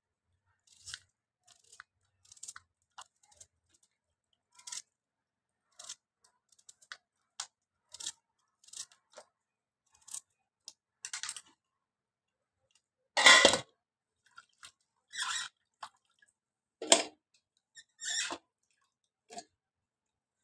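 A small knife cutting raw onion and green chillies held in the hand, a long irregular series of short crisp cuts, with pieces dropping into a steel plate of water. A much louder knock or splash comes about two-thirds of the way through.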